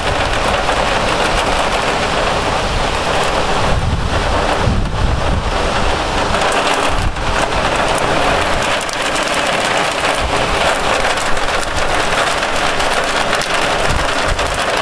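Heavy downpour of rain and hail pelting down in a loud, dense, steady hiss, with low rumbling in the first few seconds and again about four to five seconds in.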